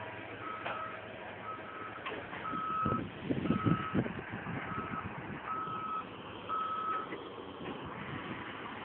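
A Caterpillar 315 excavator's travel alarm beeps about once a second and stops about 7 seconds in. Under it the machine rumbles, with a louder low clattering burst about 3 seconds in.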